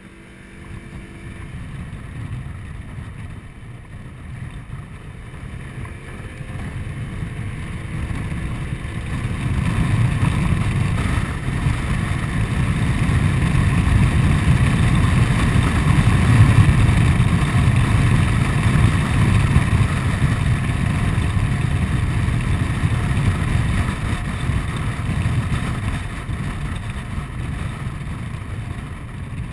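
Honda Forza 125 scooter's single-cylinder engine running under way, mixed with wind rushing over the microphone. It grows steadily louder through the first half, then eases a little near the end.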